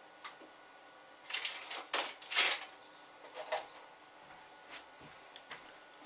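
Rummaging for a pen: a few short bursts of clattering and rustling as small objects are shifted about, the loudest about two seconds in, with a lighter one a second later.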